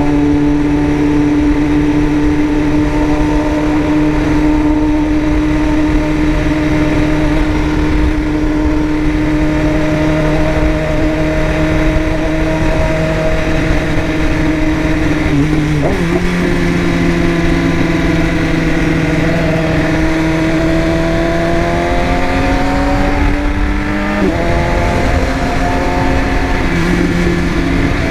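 BMW S1000RR inline-four engine running steadily under way, holding an even note. Its pitch steps up about halfway through and shifts again near the end.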